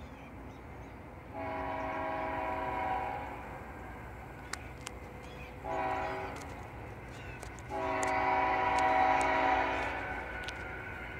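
A Norfolk Southern freight locomotive's multi-chime air horn sounds three blasts: a long one about a second in, a short one, then a longer one.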